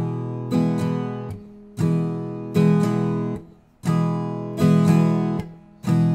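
Viola caipira strummed in the cururu rhythm: down, up, down strokes with a damped 'matada' stroke that cuts the ringing chord short before the next phrase.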